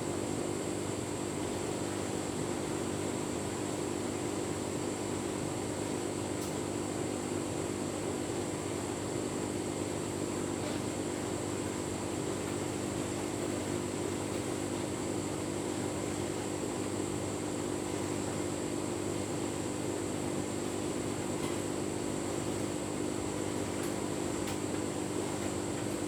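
Tumble dryer running with a full load of bedding: a steady motor and fan hum that does not change.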